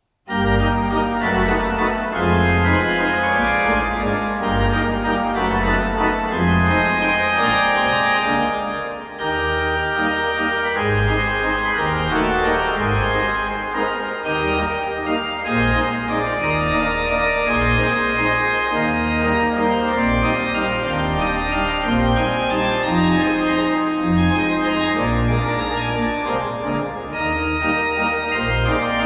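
1996 Goll pipe organ playing a waltz, with low bass notes moving under sustained chords and a melody line.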